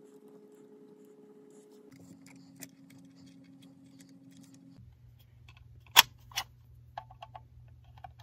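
Small clicks and taps of metal parts being handled at an electrical switch box and its conduit fitting, with two sharp clicks about six seconds in, over a faint low hum.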